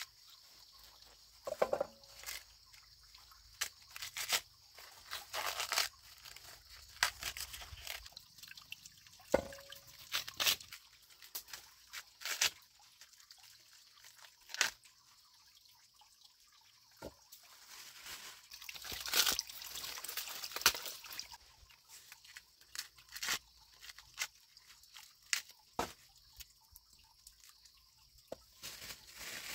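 Fresh ears of corn being husked by hand: green husks tearing and rustling in irregular strips, with crisp snaps as the leaves come off.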